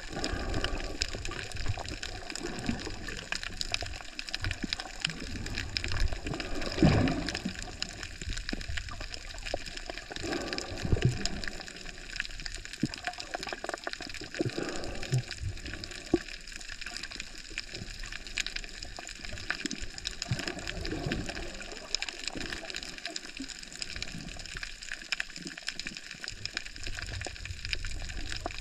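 Underwater ambience recorded on a reef: a muffled, continuous wash of moving water with a steady crackle of many small clicks, and now and then a low swell of water moving past the camera housing.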